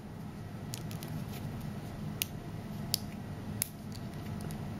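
Small neodymium magnet spheres clicking a few times as fingers pull the middle magnets out of a pentagonal ring of them, over a faint low hum.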